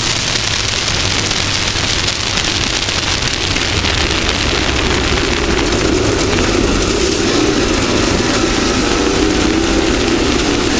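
Off-road race vehicle driving at speed, its engine running under a loud steady rush of wind and dirt noise. About five seconds in, the engine's note comes up more clearly above the rush.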